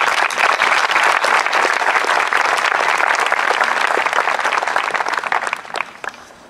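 Audience applauding: many people clapping together, a dense patter that dies away near the end.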